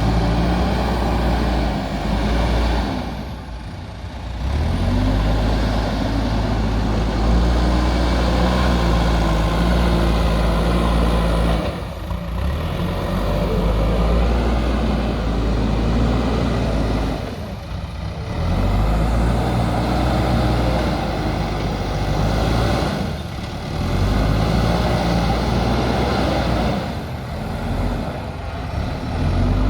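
JCB backhoe loader's diesel engine working under load, its pitch stepping up and down, with brief drops in level every few seconds.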